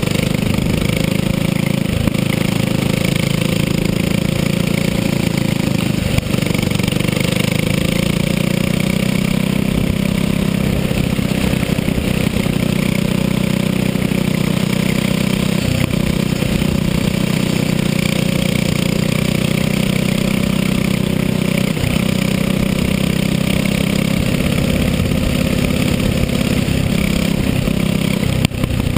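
Onboard sound of a racing go-kart's small engine running hard and steadily at speed, its pitch wavering slightly through the corners, with a brief dip in loudness near the end.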